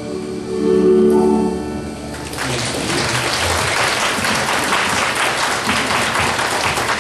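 Live music ends on a held final chord, then about two seconds in the audience breaks into applause.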